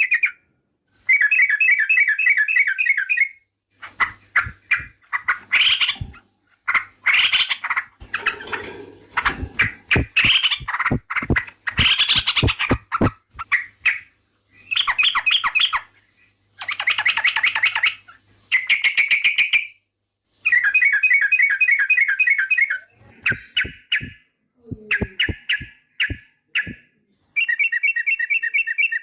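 Yellow-vented bulbul (trucukan) singing: repeated bubbling, warbling phrases of a second or two each, separated by short pauses. A run of sharp clicks comes through in the middle stretch.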